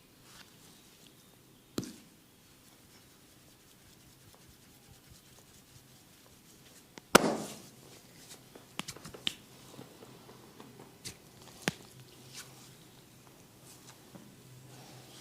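Massage cracks and pats from hands working on skin: a sharp crack about two seconds in, a much louder crack about seven seconds in, then a run of smaller scattered clicks.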